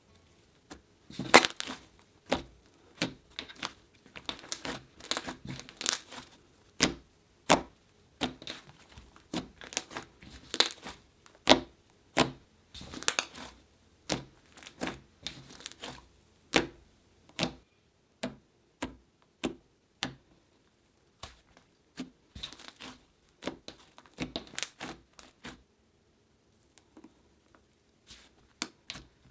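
Soft clay butter slime, softened with lotion and shaving foam, being pressed, poked and stretched by hand: irregular sticky clicks and crackles, several a second, with a short lull near the end.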